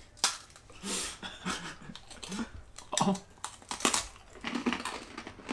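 Hard Japanese rice crackers being snapped apart and bitten into, giving several sharp, brittle crunches with small crackling clicks between.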